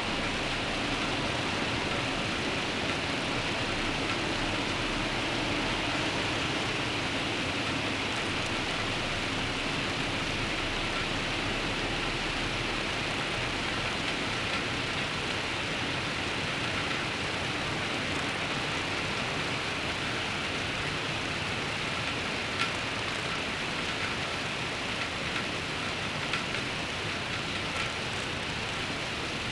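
Steady rain falling, with a low rumble of road traffic through roughly the first half and a few louder drips near the end.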